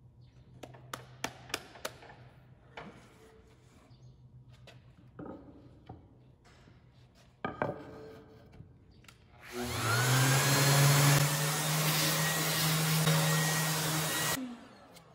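Light clicks and taps from handling an electric random orbital sander and its sanding disc, then the sander switches on with a rising whine about ten seconds in, runs loud and steady sanding a board for about five seconds, and stops with a falling tone.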